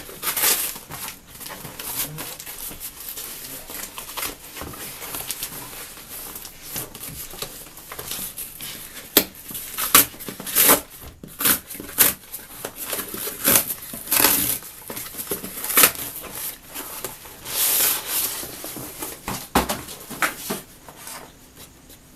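Plastic packaging being crinkled and torn off a keyboard box: irregular rustling with sharper rips and snaps, louder in a few surges.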